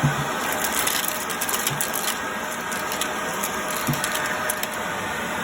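Vacuum cleaner running steadily, with scattered clicks and crackles of debris rattling up through it and a couple of light knocks.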